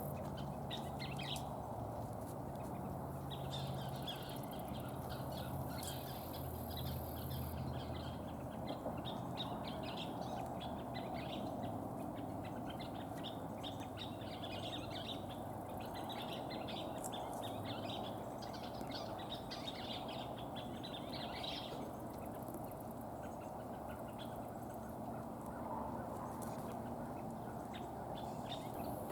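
Scissor-tailed flycatchers calling in repeated bursts of sharp chatter, fading out about two-thirds of the way through, over a steady background hum.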